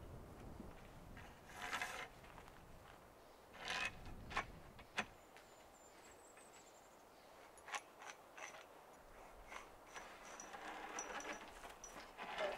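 Gear being handled by hand: scattered clicks, small rattles and a few brief scraping rustles, with quiet stretches between.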